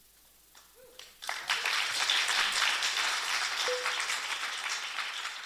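Audience applauding: the clapping breaks out about a second in and keeps going.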